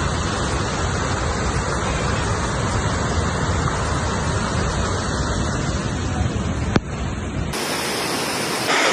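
Steady, dense rushing noise of fast-flowing floodwater, with a single sharp click about seven seconds in; the sound changes abruptly shortly before the end.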